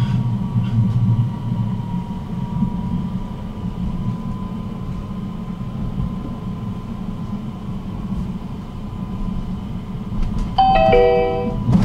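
Steady low rumble of a tram running on rails, heard from inside the car, with a faint steady whine. Near the end the onboard chime sounds, a few notes stepping downward, the signal that comes before a next-stop announcement.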